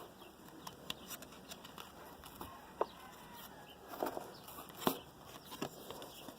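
Trading cards being handled and flipped through: faint scattered rustles and soft clicks, with a few sharper snaps about three, four and five seconds in.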